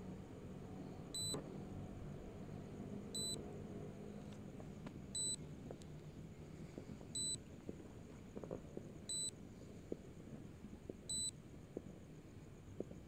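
Electronic warning beep from the SJRC drone's controller app, a short high beep repeating every two seconds: the app's alert that the drone is past its distance limit and returning home.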